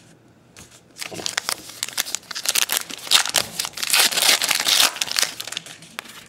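A 2012 Topps Gypsy Queen baseball card pack's wrapper being torn open and crinkled by hand: dense crackling that starts about a second in, is loudest in the middle and eases off near the end.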